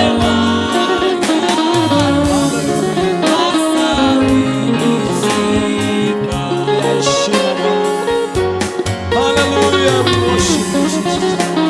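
Live gospel praise-and-worship music: a church band with bass, guitar and drum kit playing a steady beat, with a singing voice over it.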